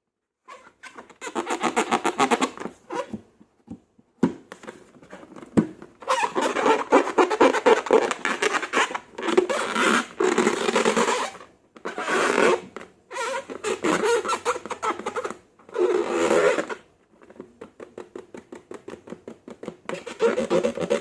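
Slime being squished and stretched, with rapid wet clicks and crackles of popping air pockets. It comes in several bouts with short pauses between them.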